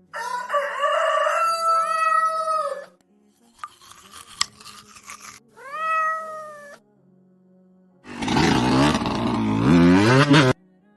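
Cat meowing in separate calls, each rising in pitch at its start, with faint clicks between them. About eight seconds in comes a louder, rougher, lower drawn-out cry that stops abruptly.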